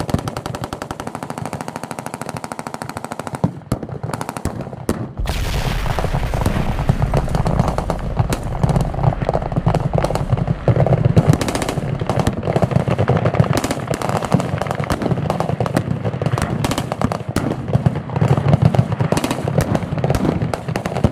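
Many machine guns firing in rapid continuous bursts. About five seconds in, a large explosive target, its charge believed to be ANFO, goes off with a sudden deep boom. Rapid fire and a low rumble then carry on together.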